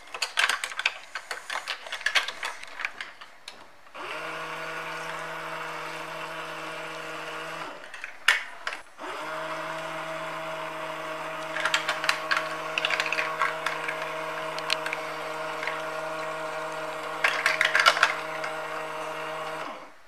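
Small battery-powered water pump in a toy kitchen sink's faucet running with a steady hum. It switches on a few seconds in, stops briefly a little before halfway, then runs again until just before the end. Plastic dishes and cups clatter before and during it.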